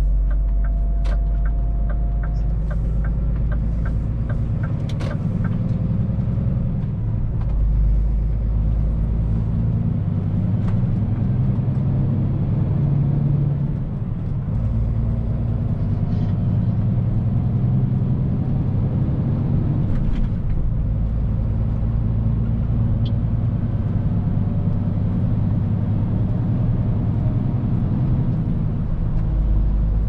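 Scania truck's engine and tyre noise heard from inside the cab while driving, a steady low drone. A quick, regular ticking sounds over it for the first few seconds.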